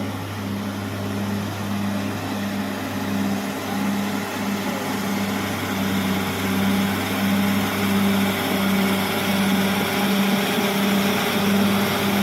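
Caterpillar D6R XL bulldozer's diesel engine running steadily, a deep hum with a regular pulsing throb of a bit over one beat a second.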